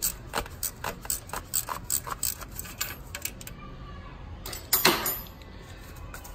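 Hand ratchet clicking about four times a second as it turns the centre screw of a rear main seal puller, drawing the old crankshaft rear main seal out of the engine block. The clicking stops a little past three seconds in, and a short, louder scrape follows about five seconds in.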